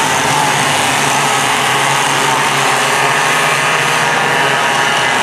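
A pack of racing go-kart engines running together at speed through a corner: a loud, steady, dense engine drone.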